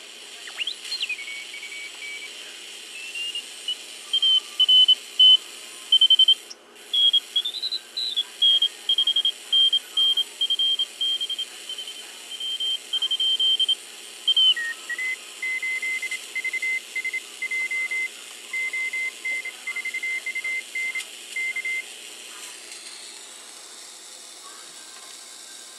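A Morse code (CW) signal picked up on a homebrew 40-metre regenerative receiver, heard through its speaker as a keyed beep tone over faint hiss. The pitch glides as the receiver is tuned, settles into on-off keying, drops lower about halfway, and the keying stops a few seconds before the end, leaving only hiss.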